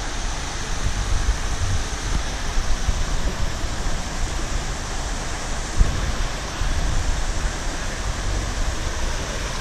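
Steady rush of running water from a mini-golf course's pond and water feature, with wind rumbling on the microphone. A single sharp knock about six seconds in.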